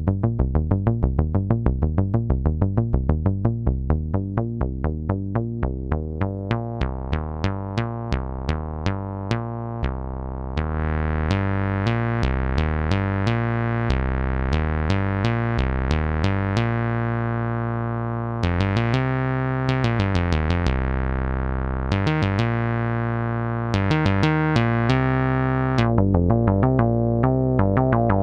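Behringer MS-1 analog monophonic synthesizer playing a rapid repeating sequenced or arpeggiated bass line. About ten seconds in, its filter opens to a brighter, buzzier tone, then closes and opens again.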